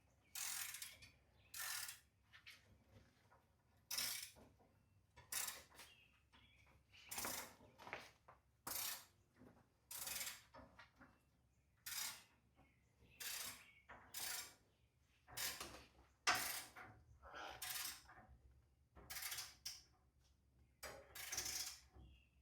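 Hand ratchet wrench clicking in short bursts, roughly one a second, as a bolt is run down and tightened stroke by stroke.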